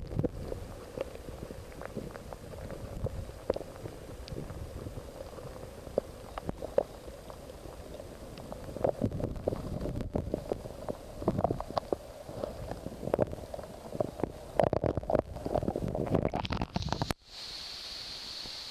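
Muffled underwater rumble of a river's current heard through a submerged camera, with frequent knocks and clicks. About seventeen seconds in it drops abruptly to a steady hiss with a faint high whine.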